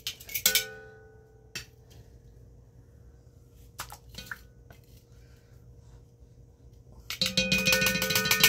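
Metal tongs and spatula clinking against an enameled Dutch oven as a pork roast is lowered back into it, the pot ringing briefly after the first knocks. A few single taps follow, then a quick run of clattering near the end.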